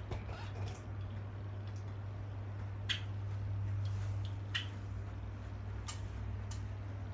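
A few short, sharp zebra finch calls, like ticks, the strongest about three seconds in and others around four and a half and six seconds, over a steady low hum.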